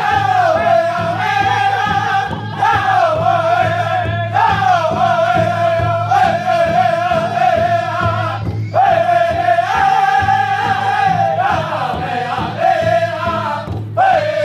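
Powwow drum group: several men singing together in high voices, with short breaks between phrases, over a steady beat struck on a shared big drum.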